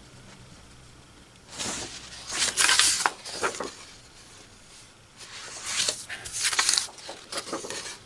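Sheets of printed paper rustling and sliding against each other as they are handled and turned over, in two bouts of about two seconds each.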